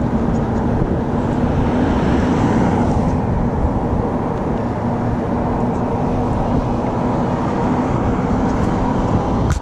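Wind rushing over the action camera's microphone, together with tyre and road noise from an electric bike rolling along a paved street, with a faint steady low hum underneath. A short knock comes near the end.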